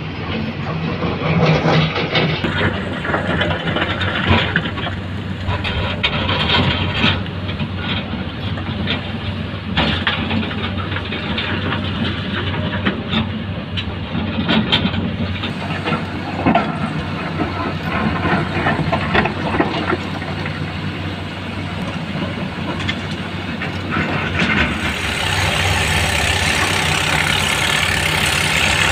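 Heavy diesel tipper truck engine running steadily, with frequent rattles and knocks over it. Near the end the engine sound grows louder and brighter.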